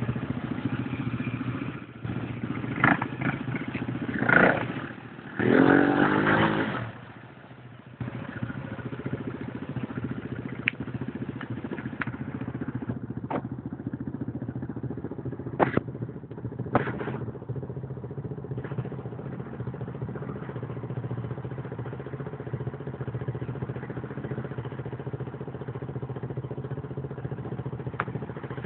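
An ATV's small engine running steadily near idle, briefly louder a few times in the first seven seconds and dipping for about a second near eight seconds in. A handful of sharp clicks and knocks sound over it.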